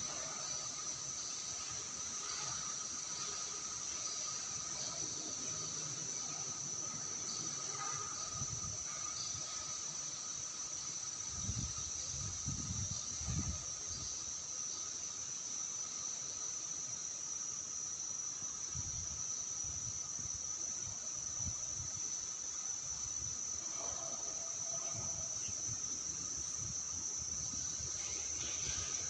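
Steady high-pitched chirring of insects that does not let up, with a fainter, lower steady tone beneath it and a few soft low thuds around the middle.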